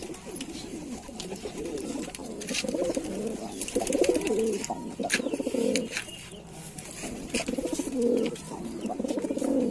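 Lalsara pigeons cooing over and over, the coos running almost without a break, with light clicks and taps alongside.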